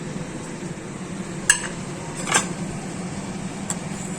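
Kitchen utensils clinking against a pot as ingredients go in: two clear clinks about halfway through and a faint one near the end, over a steady low hum.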